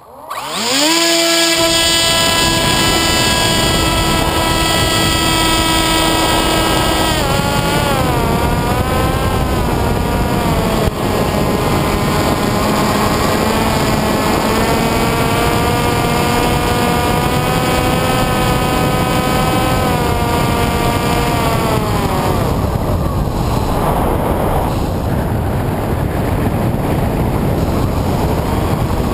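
Electric motor and propeller of an FPV aircraft throttling up sharply, then running hard with a steady whine over loud wind rush. The pitch dips and climbs back about seven seconds in, then falls away about twenty seconds in as the throttle comes off, leaving mostly wind noise.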